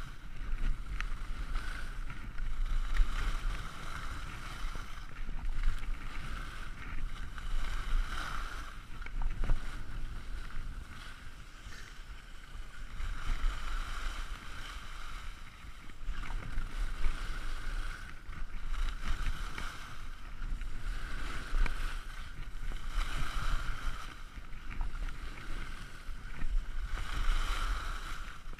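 Skis carving and scraping over hard-packed groomed snow, the rush swelling and fading with each turn about every two seconds, over a low wind rumble on the microphone.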